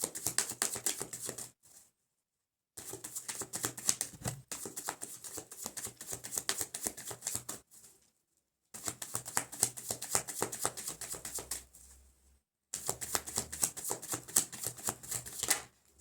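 Tarot cards being shuffled by hand: a rapid run of card clicks and flicks that stops briefly a few times.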